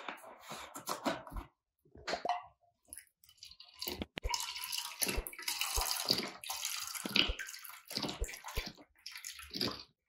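Milk being poured to measure out a canful for the blender: an uneven liquid pouring and splashing sound, mostly from about four seconds in, with a few light knocks.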